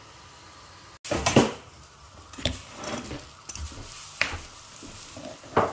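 A spoon knocking and scraping against a cooking pan while stirring thick kadhi. There are several sharp clinks at irregular intervals, the loudest a little over a second in.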